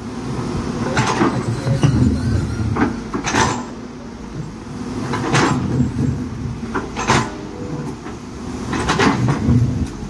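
Caterpillar hydraulic excavator's diesel engine running under load as the bucket digs into soil, with short sharp knocks and scrapes from the bucket and its linkage about every second or two.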